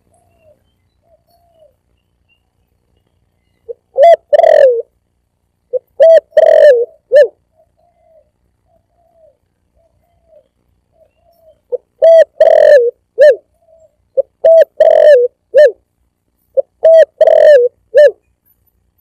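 Spotted dove (tekukur) lure call: five loud cooing phrases of three to four coos each, with fainter coos in between.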